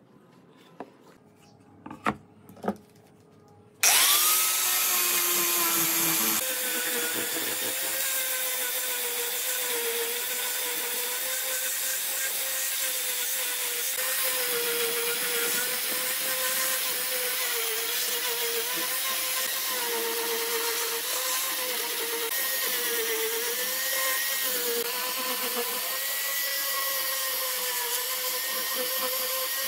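A few faint clicks. About four seconds in, an angle grinder fitted with a sanding disc starts suddenly and runs steadily to sand a wooden board, its whine wavering in pitch as it is worked across the wood.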